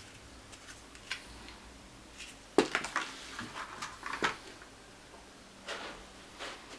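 Small hard items and packaging handled on a tabletop. There is a sharp click about two and a half seconds in, then a run of clatters and taps, and two softer rustles near the end.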